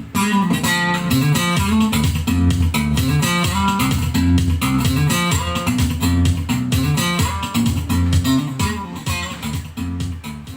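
Instrumental music with bass guitar and electric guitar playing through a 12-inch active speaker under test. The track fades down over the last couple of seconds.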